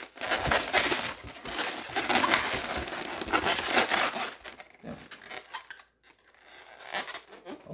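Inflated latex 260 modelling balloons rubbing against each other and against hands as they are twisted and pressed into shape, a dense crinkling rub. It stops about four and a half seconds in, with only fainter handling after.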